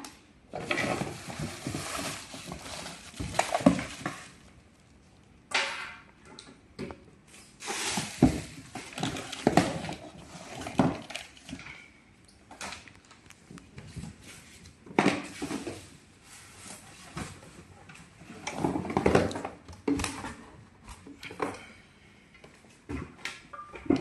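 A cardboard box being opened and its packed contents handled: irregular bursts of rustling and scraping, with a few sharp knocks.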